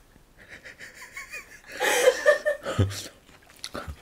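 A woman laughing: faint giggles about a second in, then a louder short run of laughter around two seconds in.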